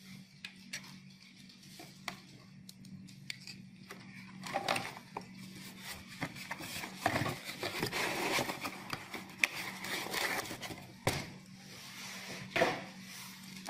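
Hands handling a cardboard box with a moulded pulp insert and radio accessories on a desk: rustling, scrapes and light knocks come and go throughout, over a faint steady low hum.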